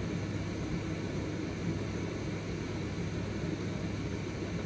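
Steady low hum and hiss of background room noise, unchanging throughout.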